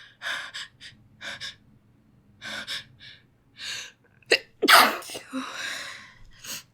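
A woman's short, catching breaths building up to a sneeze, then a loud sneeze about four and a half seconds in, trailing off into a breathy exhale.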